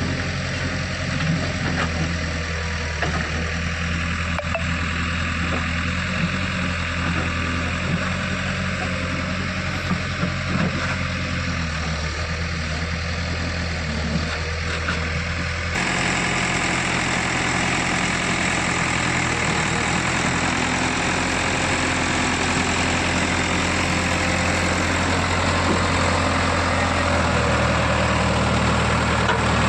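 JCB 3DX backhoe loader's diesel engine running steadily, changing about halfway through to a louder, harsher note, with a few short knocks in the first half.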